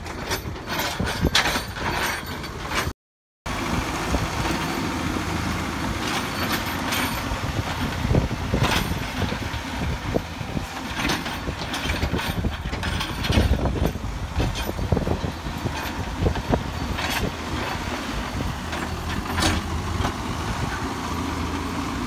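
A lorry hauling a wheel loader on a lowboy trailer passes with a run of rapid clicks; after a brief dropout, the diesel engines of a JCB 3CX backhoe loader and a Cat excavator run steadily, with scattered knocks and clanks.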